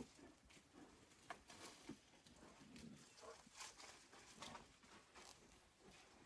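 Faint sounds of a bear feeding at a bait site: scattered soft clicks, crunches and rustles, all very quiet.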